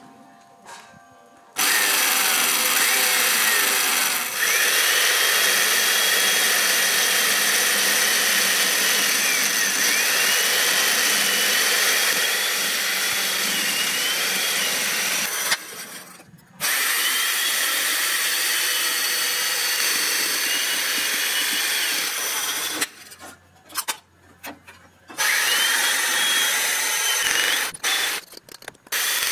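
Electric chain mortiser running and plunging its cutter chain into an oak beam to cut a mortise, its whine sagging and recovering in pitch as the chain bites. It starts about a second and a half in, stops for about a second midway, and runs in short on-off bursts near the end.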